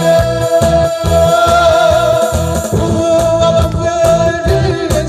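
A man singing a Korean trot song live into a microphone over a backing track with a steady bass beat, amplified through a PA speaker.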